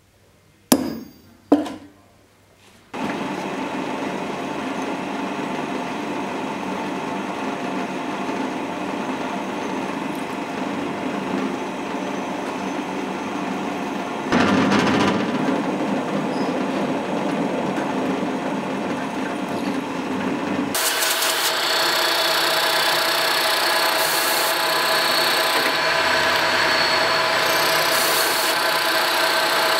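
Two sharp metal taps as a small punch marks a brass plate on the anvil, then a drill press runs steadily, drilling the brass guard plate clamped in a vise. About two-thirds of the way through, the sound changes to a brighter, hissier cutting noise as a small end mill machines the brass.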